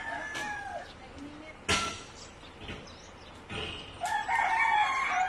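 A rooster crowing: one crow tailing off just after the start and a louder, longer one from about three and a half seconds in. A single sharp knock just under two seconds in.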